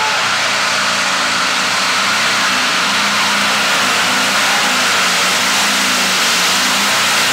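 Modified pulling tractor's engine running flat out as it hauls the weight sled down the track, a loud, steady, unbroken noise.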